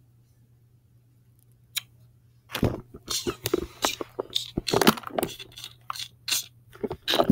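Handling noise on a phone held close: about two and a half seconds in, after a near-silent stretch, an irregular string of scrapes, rubs and knocks begins as fingers cover and rub against the phone.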